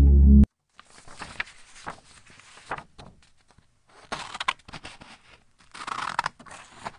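Background music cuts off about half a second in. After that, chopped leaves are tipped from a small plastic cup into a plastic tub and moved about, with scattered light rustles and clicks in short clusters.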